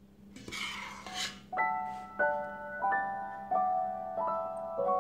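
Background piano music: a slow melody of single notes struck roughly every two-thirds of a second, coming in about a second and a half in after a short noisy swish.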